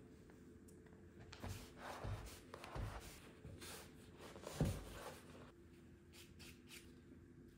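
Hands working the leather cover on a Mercedes S-Class steering wheel: leather rustling and rubbing against the rim, with a few soft thumps, the loudest about four and a half seconds in. Near the end come several light ticks as a brush dabs glue onto the wheel.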